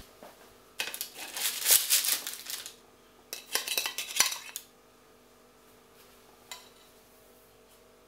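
Parchment paper crinkling and a ceramic dish clinking against a baking tray as cookies are lifted off it, in two bursts of about two seconds each.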